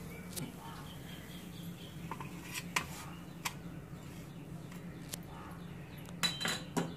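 Scattered light clinks and taps of metal utensils on stainless steel, a spatula on the tawa and a fork on a steel plate, with a small cluster of louder clinks about six seconds in. A steady low hum runs underneath.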